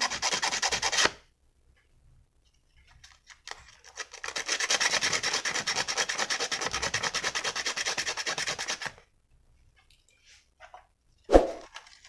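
Emery paper rubbed in quick back-and-forth strokes against the contact point of a fridge compressor's overload protector, scouring off the carbon that had built up under it and stopped it giving continuity. There are two bouts of sanding, a short one that stops about a second in and a longer one from about 4 to 9 seconds, then a single sharp knock near the end.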